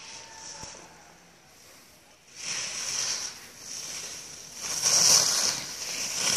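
Skis scraping and hissing over packed, groomed snow as a young skier makes short-swing turns close by. The hiss sets in about two and a half seconds in and swells with each turn, loudest about five seconds in.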